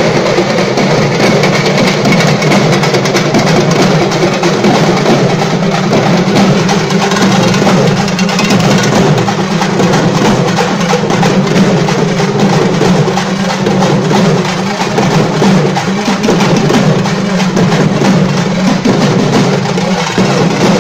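A Tamil drum troupe playing several double-headed shoulder drums, beaten with sticks in a fast, dense, unbroken rhythm, with a steady low drone underneath.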